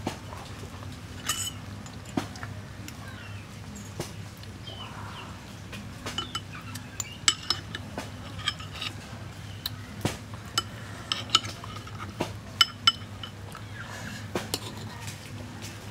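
Metal fork and spoon clinking and scraping against a ceramic bowl while someone eats: irregular sharp clicks, busier in the second half.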